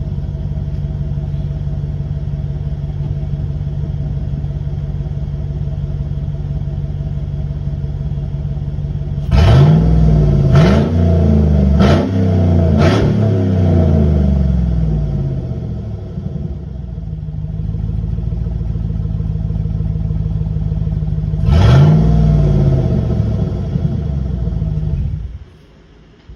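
Chevy truck's 5.3-litre V8 with a straight-piped exhaust idling loudly. It is revved four times in quick succession about nine seconds in, settles back to idle, is revved once more near the end, then cuts off.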